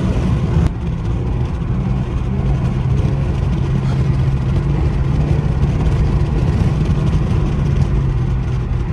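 Infiniti Q50's twin-turbo 3.0 L V6 (VR30DDTT) running at a steady engine speed with a low, even drone while the car is driven. The engine gets a little quieter just under a second in.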